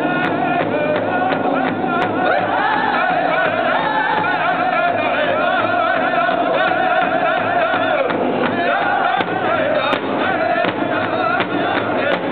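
A powwow drum group singing together in wavering voices while several drummers strike one large shared hide-covered drum with padded sticks in a steady, even beat.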